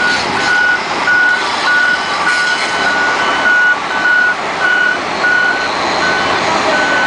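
A vehicle's reversing alarm beeping steadily, a little under two beeps a second, over the running noise of a heavy vehicle or site machinery.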